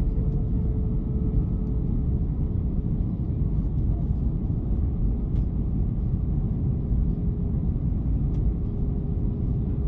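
Airbus A321 cabin noise on approach to landing: the steady deep rumble of the engines and airflow heard from inside the cabin. A faint steady hum above it fades out about a second and a half in.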